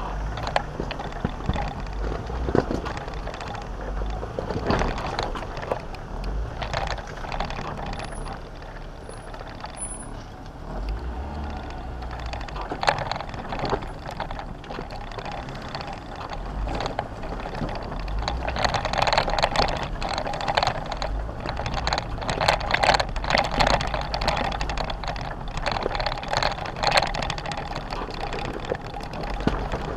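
Jeep Wrangler driving on a rough dirt trail: a low engine rumble under a constant clatter of knocks and rattles, which gets louder in the second half.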